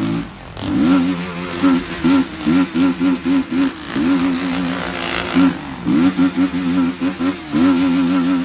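BMW G310 motorcycle's single-cylinder engine revving hard while ridden, its pitch climbing about half a second in and again near six seconds. Between the climbs it holds at high revs with a wavering, pulsing note about three times a second.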